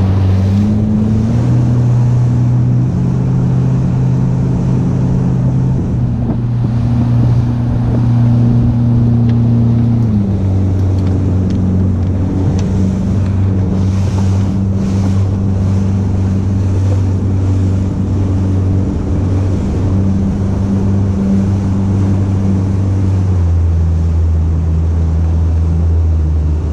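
A boat engine running steadily with a low drone. Its pitch steps up about a second in, drops around ten seconds in, and drops again near the end.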